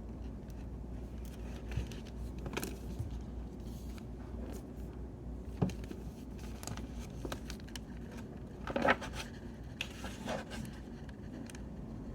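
Steady low background noise with scattered small desk handling sounds: soft clicks, scrapes and rustles of pen and paper, the loudest a brief rustle about nine seconds in.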